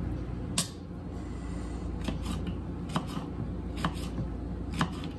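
Knife cutting on a cutting board: about seven sharp, irregularly spaced knocks, over a steady low hum.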